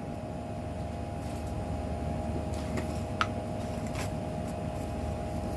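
Steady mechanical hum of a fan or air-conditioning unit in a small room, with a few faint light clicks about three and four seconds in.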